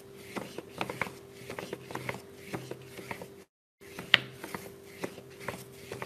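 Paintbrush scrubbing and stroking across wet paint on paper, blending the colours: a run of short, irregular scratchy strokes over a steady low hum. The sound cuts out completely for a moment about three and a half seconds in.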